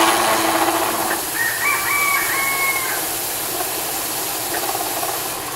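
Antique turret lathe running while a form tool cuts the hex and chamfers on a small nut. About a second in, a rooster crows once, for under two seconds, over the steady machine noise.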